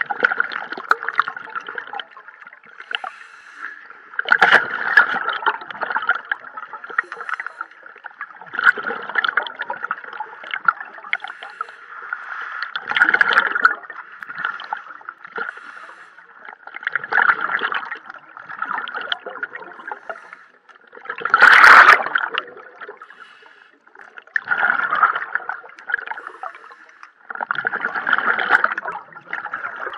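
Scuba diver breathing through a regulator underwater: exhaled bubbles gurgle out in bursts about every four seconds, with a steady hiss between them. The loudest burst comes a little past the middle.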